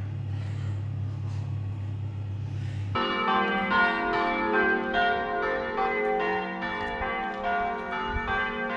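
A steady low hum, then church bells begin ringing about three seconds in, many overlapping bell tones struck again and again.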